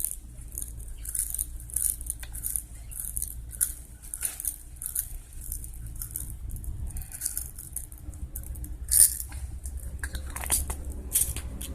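Beads being shaken out of their container into slime: a run of light clicks and patters, with one louder click about nine seconds in.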